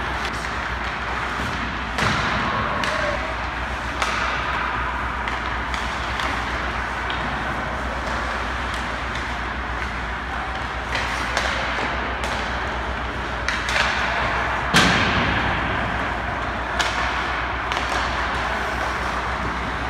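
Ice hockey shooting drill: sticks hitting pucks and pucks thudding into the goalie, a handful of sharp hits over a steady rink noise. The loudest hit comes about three-quarters of the way through.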